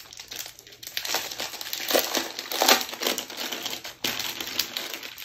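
Paper sheets rustling and crinkling as they are handled and lifted out of a board-game box, in irregular bursts of crackling that are loudest a second or two in.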